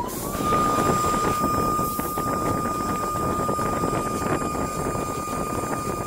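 Spindle of a STYLECNC STM1530D automatic-tool-change CNC wood router spinning up, its whine rising in pitch over about half a second and then holding steady at one high pitch, over a loud rushing noise of the machine at work.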